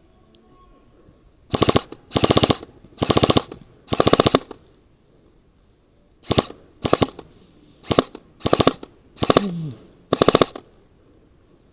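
Airsoft rifle firing on full auto in about ten short bursts of rapid shots: four longer bursts early on, then six shorter ones with pauses between them.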